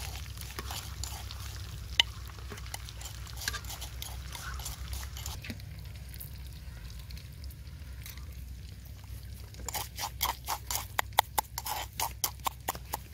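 Hot oil crackling in the first few seconds, then a quick series of sharp clicks and knocks near the end: a metal spoon striking and scraping inside a clay mortar as it stirs ground spice. A low steady rumble runs underneath.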